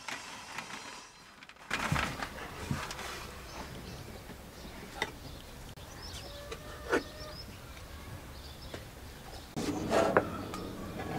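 Outdoor ambience with a few short bird chirps, broken by scattered knocks and clatters, the loudest about two seconds in and again near the end.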